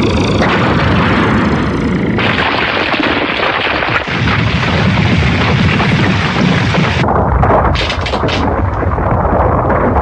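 Anime battle sound effects: a loud, continuous rumble of blasts and explosions that turns duller about seven seconds in.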